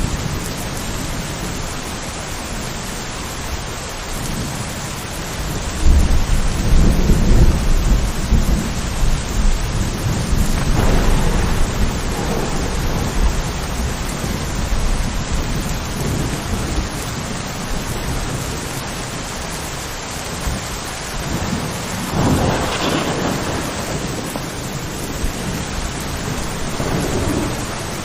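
Steady rain falling, with thunder: a loud low peal breaks about six seconds in and rolls on for several seconds, and weaker rumbles of thunder follow later.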